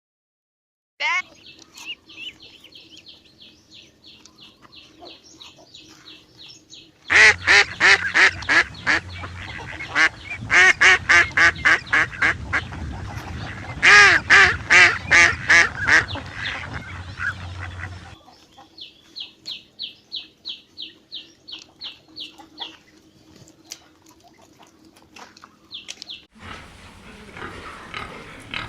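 Waterfowl calling in fast series of short honks, loudest through the middle stretch and fainter before and after. Near the end a different, noisier animal sound begins.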